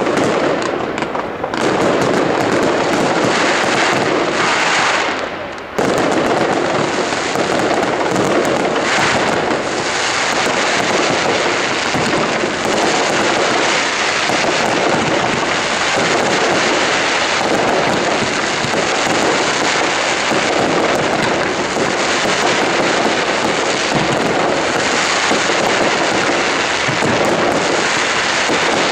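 Fireworks display: a dense, continuous barrage of bangs and crackling from shells bursting and tails rising, with a brief drop in loudness about five and a half seconds in.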